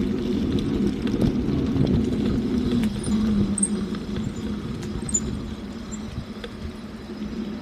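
A motor vehicle's engine running with a steady low hum, with a few faint high chirps in the middle.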